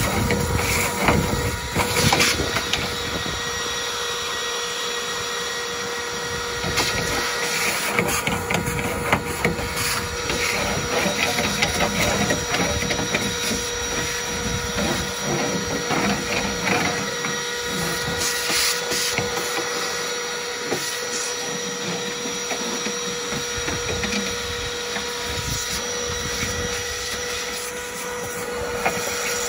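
Vacuum cleaner running steadily with a constant whine and hiss of suction, and occasional knocks as the nozzle works over the car's boot floor.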